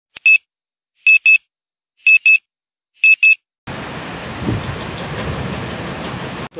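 Electronic wake-up alarm beeping, high-pitched double beeps about once a second, four times, then stopping. A steady rushing hiss starts a moment later.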